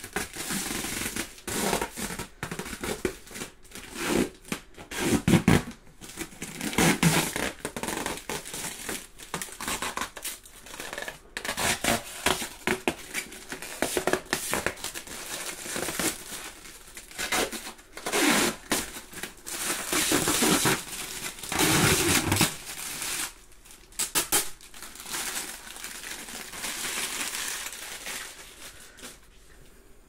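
Clear protective plastic film being peeled off a stainless-steel fridge door, crackling and tearing in irregular spurts as it pulls away from the metal, with several louder rips.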